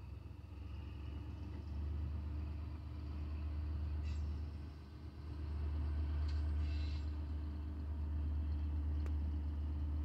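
Diesel locomotive engine making a steady low rumble with a low steady hum, growing louder about halfway through as it approaches. A thin high-pitched sound comes in for a few seconds around the middle.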